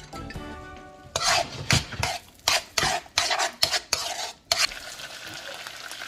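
Onion, garlic and jerk seasoning sizzling in a hot oiled wok while being stirred, with a quick run of about eight sharp scrapes, then steady sizzling near the end.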